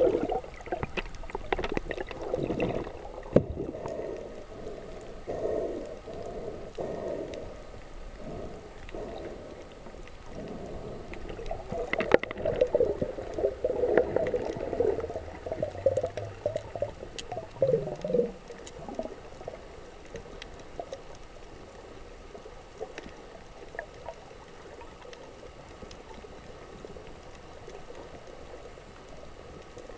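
Muffled underwater water noise picked up by a camera held below the surface: wavering gurgling and sloshing with scattered sharp clicks. It is busiest in the first two-thirds, then settles to a fainter, steady hiss.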